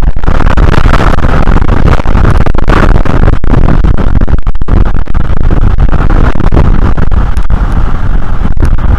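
Strong wind buffeting the nest camera's microphone: a loud, continuous rumble with a rushing hiss over it.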